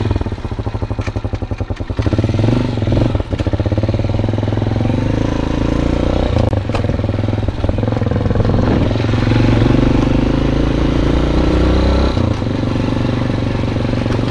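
Italika DM150 motorcycle's single-cylinder engine, heard from the bike. It pulses evenly at low revs, then gets louder and picks up speed about two seconds in, running on under way with its note rising and falling, and eases briefly near the end.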